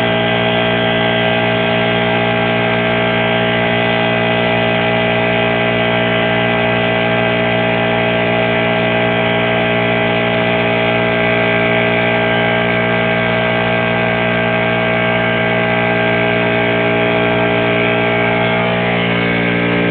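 A motor or engine running steadily with a constant hum of many steady tones, shifting slightly near the end.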